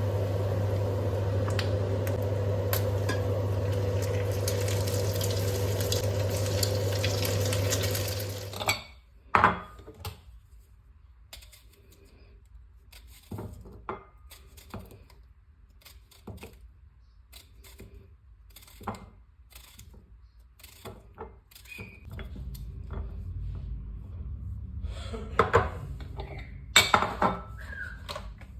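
A kitchen appliance hums steadily, then cuts off suddenly about nine seconds in. Scattered clinks and taps of dishes and cutlery follow, with a low hum returning later and a few louder clatters near the end.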